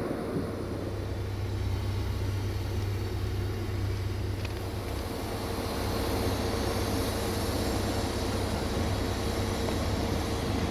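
Desiro VT642 diesel multiple unit running, with a steady low engine hum and a steady higher tone over rumbling noise, getting somewhat louder about six seconds in.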